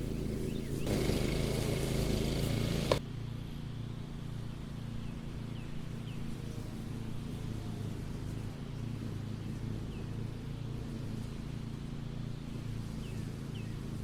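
Mower engine running steadily. For the first few seconds it is louder and rougher, then a sharp click about three seconds in, after which it runs on more quietly.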